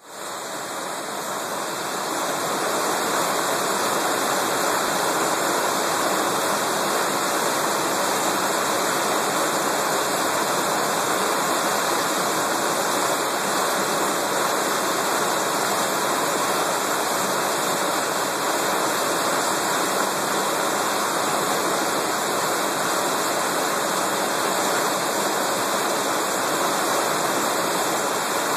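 A creek in flood after heavy rain: muddy whitewater rushing over rocks in a steady, unbroken rush. The sound builds over the first two seconds, then holds level.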